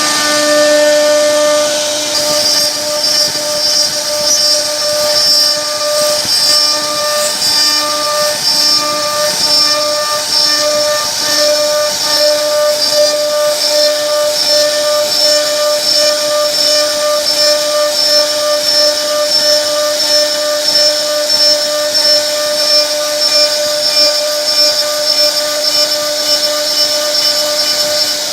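CNC router spindle running steadily, a high whine of several held tones over a hiss of cutting noise.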